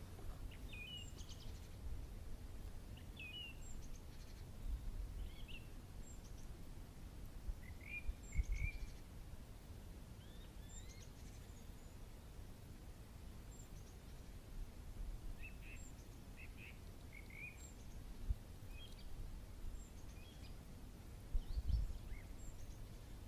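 Small songbirds calling and singing in short chirped phrases every second or two. A few low rumbles on the microphone stand out about 8 and 21 seconds in.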